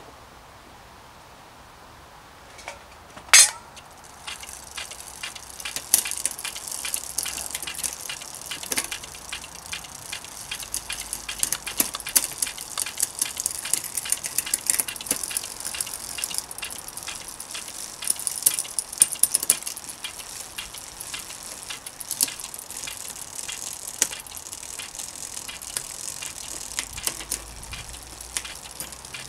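A sharp metallic clack a little over three seconds in, then the rapid, steady ticking of a bicycle's rear freewheel as the wheel spins, with uneven louder clicks from the drivetrain.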